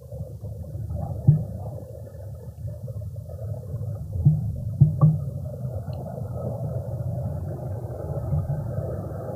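Spotted genet feeding from a dish on a wooden feeder tray: a steady low rumbling and gurgling close to the microphone, with four sharp knocks, one about a second in and three in quick succession around four to five seconds in.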